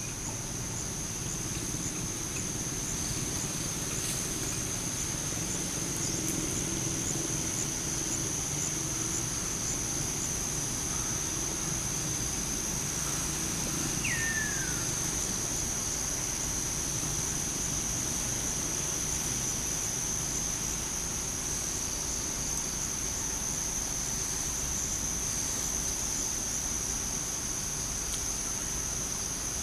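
Steady high-pitched drone of insects in the forest canopy, with one short falling whistled call about halfway through, over a low background rumble.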